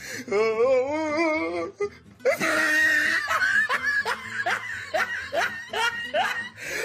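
Background music track mixed with laughter. A wavering, pulsing laugh runs for about a second and a half. After a brief drop comes a busier stretch with short rising notes about twice a second.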